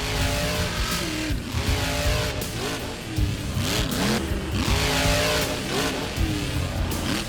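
Monster truck engine revving hard, its pitch swinging up and down again and again over a deep rumble.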